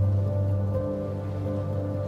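Slow background music of long held notes over a steady low bass note.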